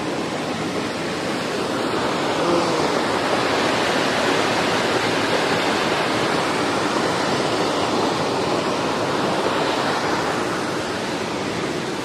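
A tall waterfall rushing steadily into a rocky pool below, its strong flow making a loud, even roar of water that swells a little about two seconds in.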